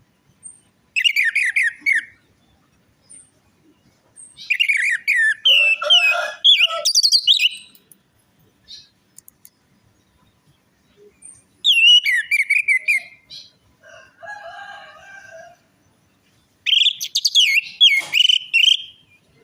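Orange-headed thrush (anis merah) singing in four separate bursts of fast, varied whistled phrases built from quick downward-sliding notes, with pauses between them. A lower, rougher call is heard between the third and fourth bursts.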